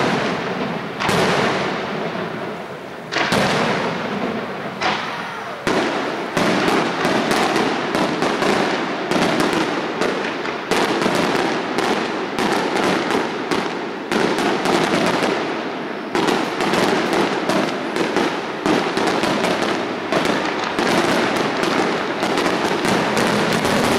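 Aerial firework shells bursting overhead in quick succession: a dense run of bangs and crackling with hardly a pause.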